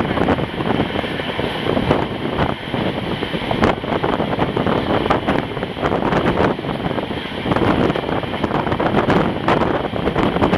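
Moving passenger train: wheels clattering irregularly on the rails, with wind buffeting the microphone.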